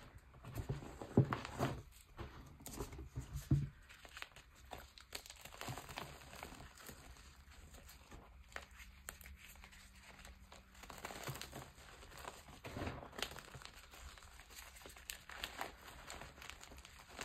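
Fingers crushing, rubbing and scooping crumbled gym chalk and loose chalk powder: soft, irregular crunching and crumbling, with a few louder crunches in the first few seconds.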